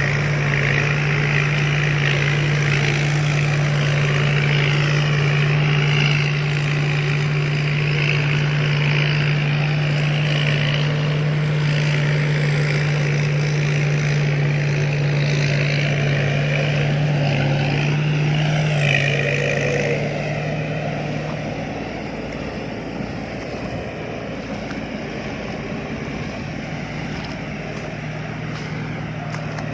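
Rice combine harvester running steadily, its engine giving a low hum under the machinery noise. About two-thirds of the way through, the sound drops and becomes quieter.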